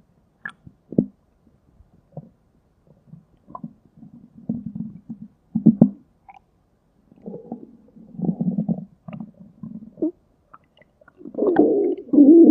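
Stomach rumbling and gurgling: a string of short, irregular gurgles and pops, then a longer, louder growl starting about eleven seconds in.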